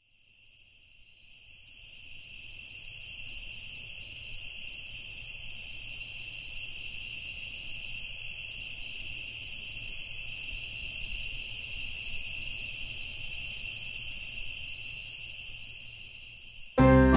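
Crickets chirping in a steady high trill, fading in over the first couple of seconds. Piano music starts suddenly just before the end.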